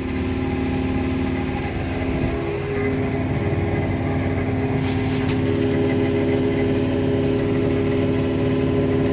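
A John Deere 4066R compact tractor's three-cylinder diesel engine running steadily under load, heard from inside the cab. Its note shifts a little higher about two and a half seconds in, and a few light ticks come about five seconds in.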